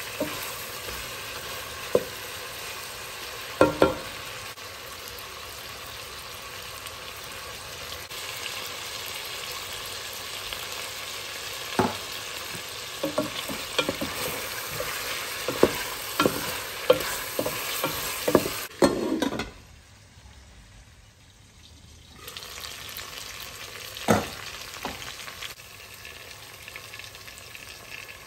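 Chicken drumsticks with onions and garlic sizzling in a pot, with a wooden spoon knocking and scraping against the pot as they are stirred. The sizzle briefly drops away about two-thirds of the way through, then returns.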